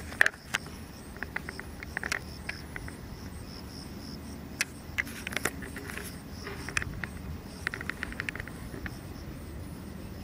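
Insects chirping in a high, fast-pulsing trill over a low steady rumble, with scattered clusters of sharp clicks.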